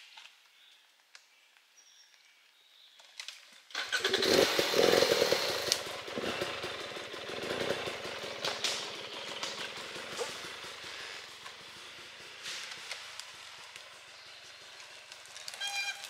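Enduro dirt bike engine running hard as the bike rides up close about four seconds in. It is loudest just after it arrives, then fades steadily as the bike rides away.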